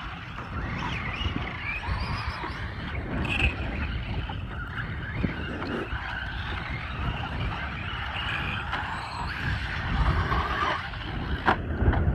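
Radio-controlled Traxxas Slash short-course trucks racing on a dirt track: their motors whine and their tyres scrabble over the dirt, with a few sharp clicks near the end.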